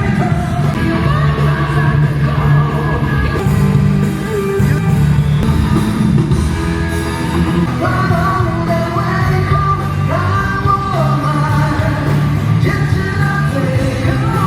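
Live rock music: a band with steady bass notes under a singer's melody, loud and continuous, sounding through a large hall.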